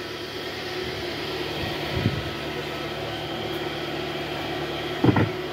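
Toyota Vellfire's 2.4-litre four-cylinder petrol engine running at a steady fast idle just after starting, its RPM still raised on idle-up, heard from inside the cabin.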